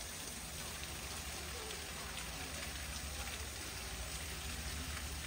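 Steady patter and hiss of running, splashing water, with a low hum underneath.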